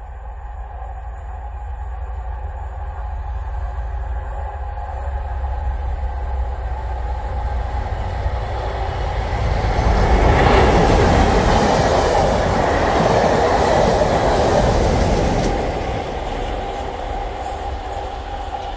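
Colas Rail Class 37 diesel locomotives, with English Electric 12CSVT engines, passing with a test train. The engine noise and rumble build up, are loudest for about five seconds as the locomotives go by, then fall away, with a steady whine throughout and some wheel clatter.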